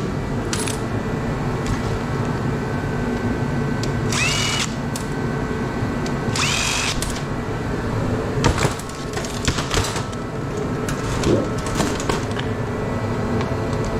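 A small power tool spins up in two short bursts about two seconds apart, its pitch rising then holding, over a steady background hum. Scattered clicks and knocks follow later on.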